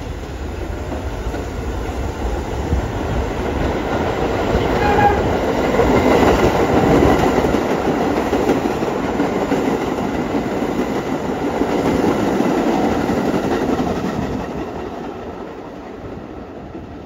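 New York City Subway train running past on the tracks, a continuous rumble of wheels on rail that builds to its loudest in the middle and fades away over the last few seconds.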